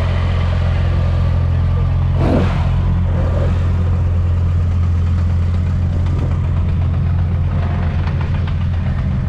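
Car engine idling with a steady low note. A brief rushing noise comes about two seconds in.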